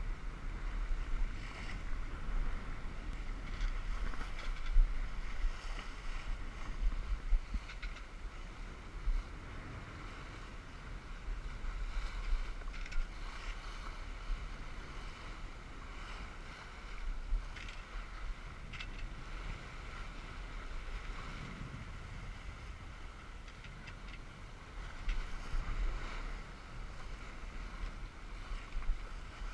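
Wind buffeting the microphone in uneven gusts, over the steady rush and splash of choppy water along a Tanzer 22 sailboat's hull under sail.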